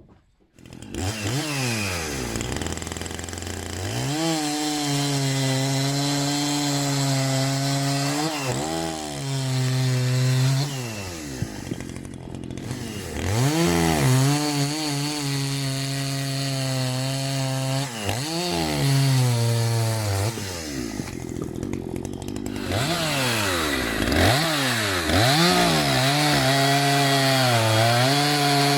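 Two-stroke chainsaw, a stock Maruyama MCV5100S, coming in abruptly about a second in. It is revved up and down again and again, with stretches of several seconds held at high revs while it cuts wood.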